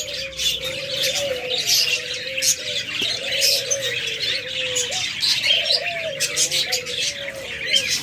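A crowded aviary of budgerigars chattering and chirping, with doves cooing underneath in a low, wavering, almost unbroken drone.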